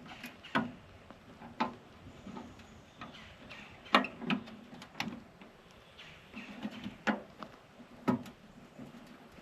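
Irregular knocks and clunks, about one a second, the loudest about four seconds in: an old mailbox being handled and fitted onto its mounting brackets.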